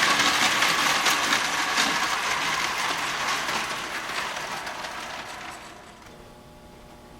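Clockwork motor of a Marx Mercury wind-up toy locomotive whirring with a dense gear chatter as its spring runs down. The sound fades steadily and dies away about six seconds in.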